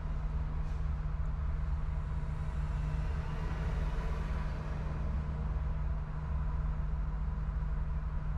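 Steady low rumble of road traffic and idling vehicles, with a slight swell near the middle as a vehicle passes.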